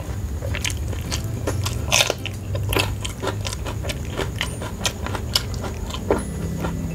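Close-miked chewing of a mouthful of food: short wet mouth clicks and small crunches, a louder one about two seconds in.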